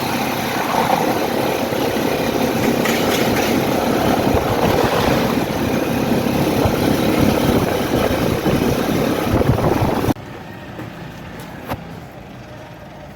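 Vehicle engine and road noise heard while riding along, a loud, steady rush. It cuts off suddenly about ten seconds in, leaving a quieter hum with a single click near the end.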